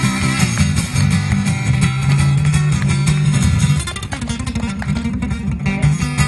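Background music led by strummed guitar over a steady bass line.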